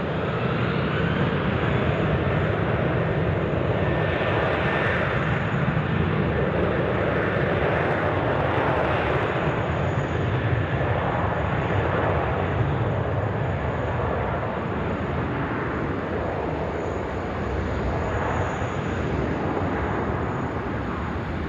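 Airbus A330 jet airliner on its takeoff run and climb-out, engines at takeoff power: a steady jet noise with a faint high whine, easing off slightly over the last few seconds.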